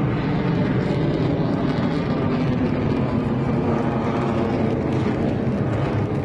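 Military aircraft flying overhead at an air show: a steady, loud engine rush.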